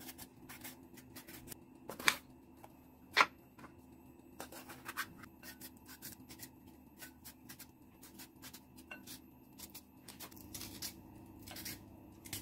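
Small kitchen knife slicing bell peppers held in the hand: a string of faint, crisp, irregular cuts and clicks, two much louder clicks about two and three seconds in.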